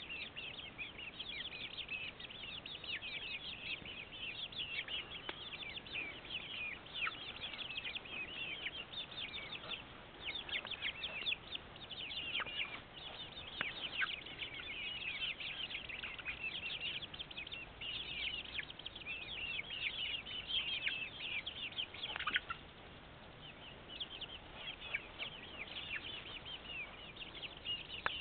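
Penned chickens peeping and chirping: many short, high calls in quick succession, with a few longer falling calls.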